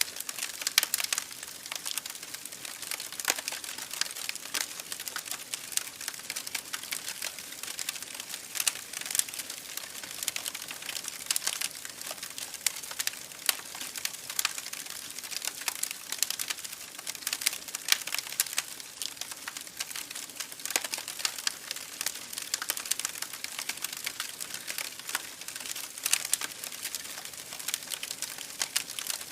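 Campfire crackling: a constant stream of irregular sharp snaps and pops over a soft hiss.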